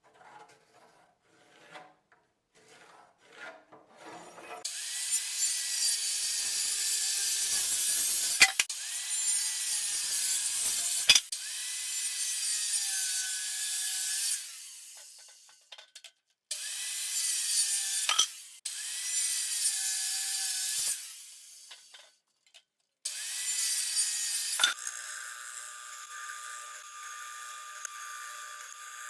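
Power saw cutting wood in several long passes, its motor pitch dipping as the blade takes load, with sharp knocks between cuts. Near the end it gives way to a quieter steady running.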